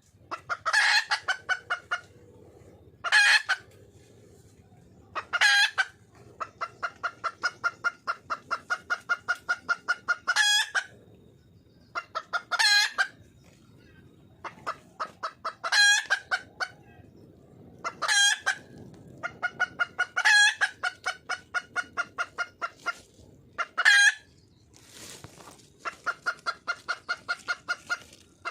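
Junglefowl hen cackling: runs of quick short clucks, about five a second, broken by a loud, sharp call every two to three seconds. This is the call of a hen seeking a mate.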